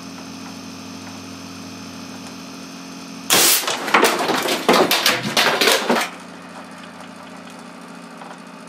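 Air cannon firing a cast lead slug from its solenoid valve at 400 psi, with the slug smashing a cell phone: a sudden loud blast a little over three seconds in, then a run of sharp cracks and noise lasting nearly three seconds. A steady hum runs underneath.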